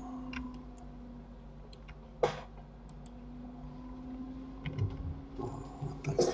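Computer mouse and keyboard clicks over a steady low hum: one sharp click about two seconds in, then a cluster of clicks near the end.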